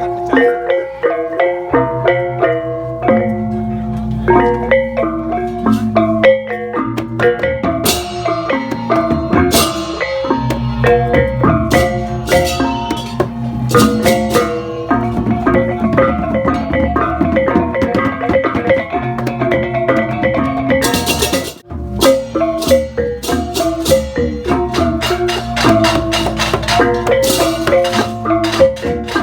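Balinese gamelan playing: rapid, interlocking metallophone notes over drums and percussion, with a brief break about 22 seconds in.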